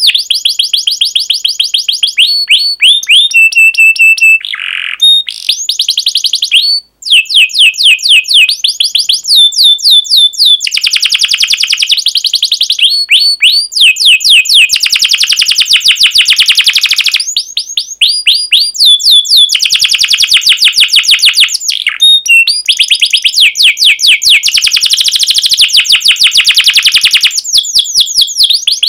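Domestic canary singing a long, loud song of fast trills. Runs of rapid repeated chirps sweep down in pitch and switch to a new phrase every second or two, with a brief break about seven seconds in.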